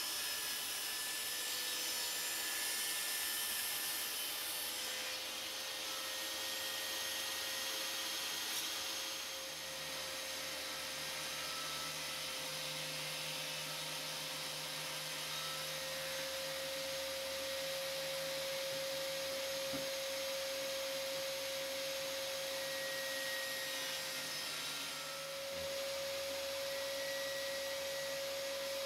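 Table saw running with a steady whine while a wooden board is pushed over the lowered blade, cutting a shallow groove along its edge.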